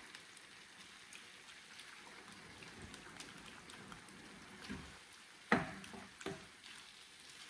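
Faint sizzling of an egg and prawn mixture frying in a pan, stirred with a wooden spatula. The spatula knocks sharply against the pan about five and a half seconds in, and more lightly just after six seconds.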